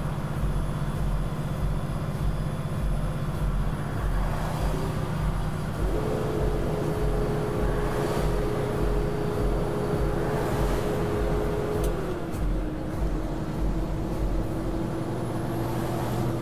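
Steady road and engine noise inside a truck cab at highway speed, a low rumble with tyre roar. A steady whine joins about six seconds in and steps slightly down in pitch about twelve seconds in.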